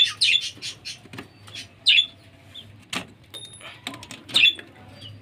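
Wooden coop door being handled and opened, giving a few sharp knocks and clacks of wood. Two short high bird chirps, about two seconds in and near the end, are the loudest sounds.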